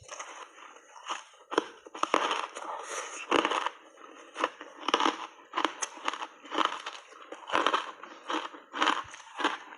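Close-up crunching and chewing of hard block ice coated in milk powder: a continuous run of crisp, irregular crunches, several a second.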